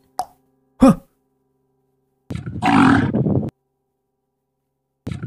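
A bull bellowing angrily twice, each call about a second long and about three seconds apart, after a short shouted word near the start.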